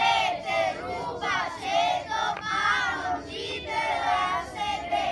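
A group of children singing their team motto together in unison, in short phrases.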